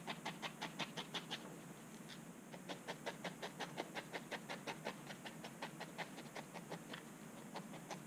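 Barbed felting needle jabbing repeatedly through wool roving into a felting pad, a quick, faint run of pokes at about five a second, thinning out briefly about two seconds in. The needling is attaching the wool head core firmly to the bird's body.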